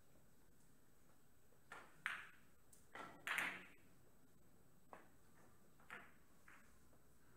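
Sharp clicks of billiard balls: a louder cluster of clicks and knocks about two to three and a half seconds in, then single clicks about five seconds in, a second later and once more just after, as a cue strikes a ball and the ball hits another.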